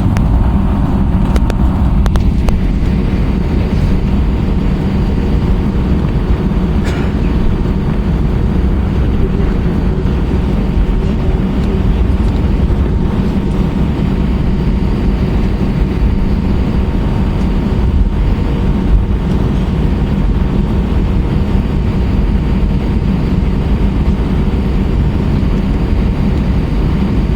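Steady, loud, low rumble of an Airbus A320-232 in operation, its IAE V2500 engines and airflow heard from inside the passenger cabin, with faint steady whine tones over it.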